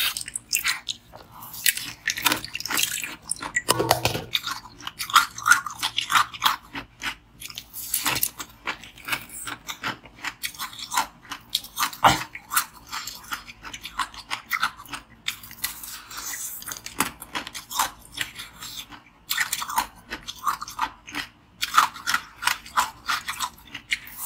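Biting into and chewing a block of blue-coloured frozen ice held close to the mouth: dense, irregular crunching and crackling throughout.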